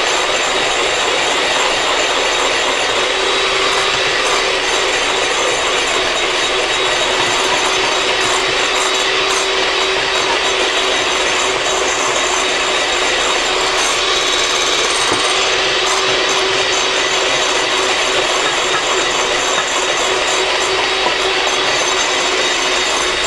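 Electric mixer running steadily at high speed, its beaters whipping eggs with vanilla into a thick batter. It is a constant motor whine with a rattle from the beaters, and it stops suddenly just after the end.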